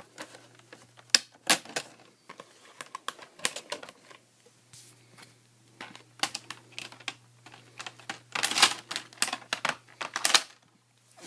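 Irregular clicks and snaps of plastic as a laptop's screen bezel is pried off with a screwdriver, its clips popping loose. The clicks come in clusters, the busiest near the end.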